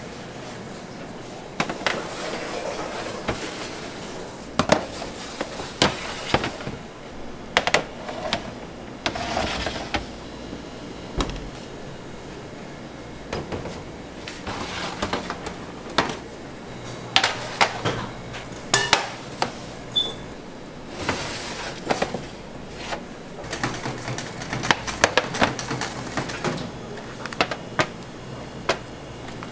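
Aluminium chiffon tube pans clanking and knocking against metal sheet trays and the oven as they are handled, in many short sharp clatters over a steady machine hum.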